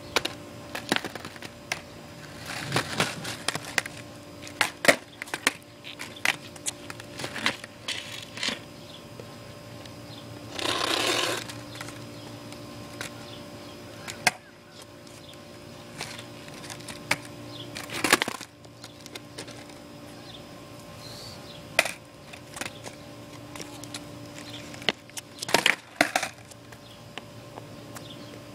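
Skateboard on a concrete sidewalk: repeated sharp wooden clacks and snaps at irregular intervals as the tail is popped and the deck and wheels slap down on landings and bails. There is a second-long rush of noise about a third of the way through and a faint steady hum underneath.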